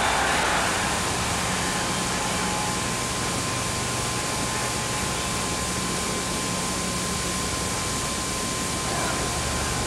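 Steady hiss with a low hum and a thin, steady high tone: the background noise of an old television broadcast soundtrack.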